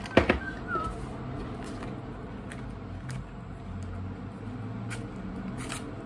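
Foil sticker packets being handled and torn open: a sharp crackle just after the start, then scattered faint crinkles and clicks over a steady low hum. A few whistled notes trail off in the first second.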